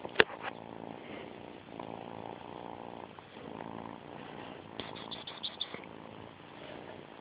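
Kitten purring steadily close to the microphone, with a sharp click about a quarter second in and a quick run of small clicks around five seconds in.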